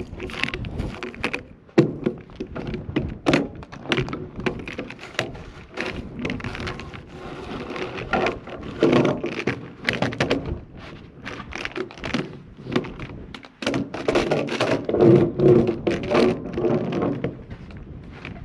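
Irregular knocks and thunks of steel parts and tools being handled, some with a short metallic ring, denser clattering about halfway through and again near the end.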